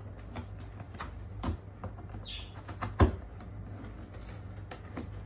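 Kitten playing in a cardboard box: scattered taps and scrapes on the cardboard, with a sharp knock about three seconds in and a short high squeak just before it.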